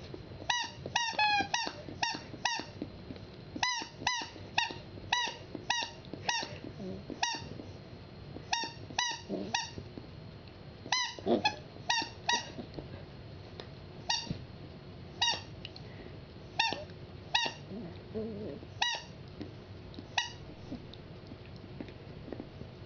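Rubber squeaky dog toy squeaked over and over by a Pembroke Welsh Corgi puppy biting it: short high squeaks in quick runs of several a second, growing sparser in the second half.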